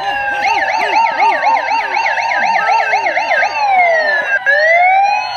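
Electronic siren warbling fast, about three times a second, then switching near the middle to a slow wail that falls and rises again.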